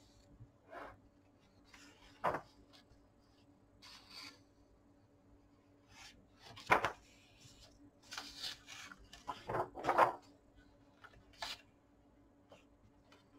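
Pages of a large hardbound book with glossy paper being turned by hand: irregular paper rustles and flaps, each page slapping down as it turns, the loudest about seven and ten seconds in.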